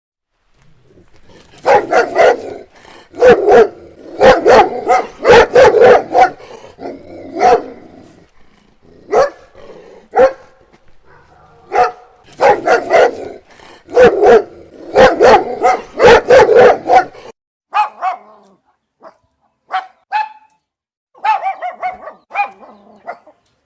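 A dog barking repeatedly in quick clusters of sharp barks. After about seventeen seconds the barks become shorter, sparser and quieter.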